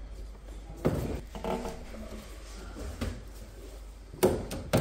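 Sharp knocks and clicks of a small metal clip and hands working at a combi boiler's hydraulic housing, prising out the old lip seals from the plate heat exchanger ports: one knock about a second in, then two close together near the end.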